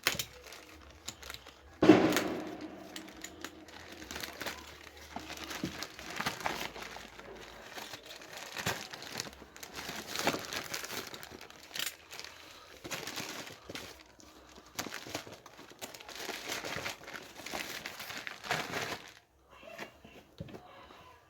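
Plastic and cardboard packaging being crinkled and rustled as it is unwrapped, in irregular bursts, with one sharp knock about two seconds in.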